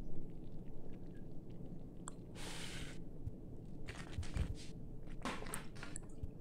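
Toasted crushed peanuts sliding off a plate into thick sauce: a brief rush of falling grains about two and a half seconds in. A wooden spatula then stirs them into the sauce, with a few short scraping strokes against the pot.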